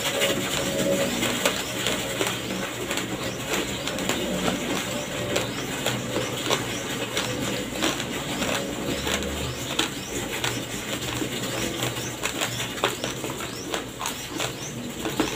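Close-miked crunching of raw, uncooked rice grains being chewed: a dense, irregular run of small crisp cracks.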